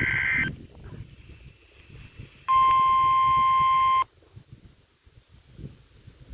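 Emergency Alert System alert on NOAA Weather Radio: a burst of SAME digital header tones, a warbling two-tone data sound, ends about half a second in, then after a pause the steady 1050 Hz weather radio warning alarm tone sounds for about a second and a half and cuts off.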